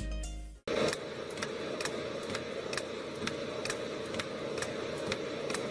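Music fades out, then a machine runs with a steady hum and a sharp click about twice a second.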